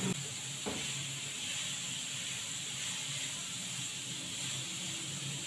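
Marinated beef sizzling steadily in hot oil in a frying pan, with a light knock just under a second in.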